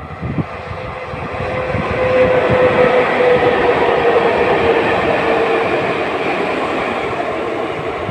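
PKP Cargo electric locomotives led by ET22-888, coupled together without wagons, passing close by on the main line. Wheels rumble and clatter on the rails, building up, peaking in the middle and easing off as they go by, with a steady whine while they are closest.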